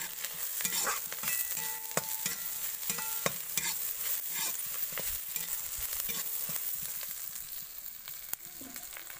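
Chopped onions sizzling in hot oil in a kadhai while a metal spatula stirs them, scraping and clicking against the pan with a few brief metallic rings. The sizzle eases off a little near the end.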